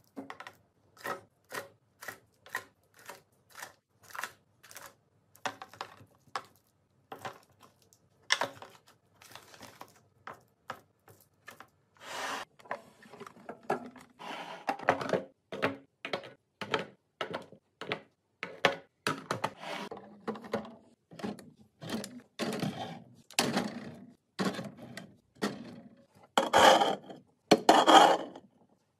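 Food items being set one by one into clear plastic organiser bins and onto fridge shelves: a steady run of small taps, clicks and knocks, a few a second. Near the end come louder scraping rubs as a can is slid into place on a fridge shelf.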